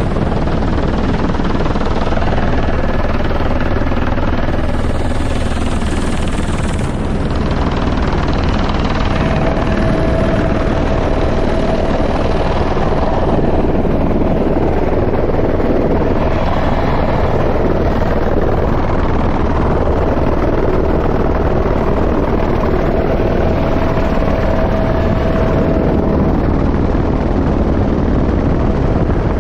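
Helicopter engine and rotor noise, loud and steady. A thin steady tone joins about nine seconds in.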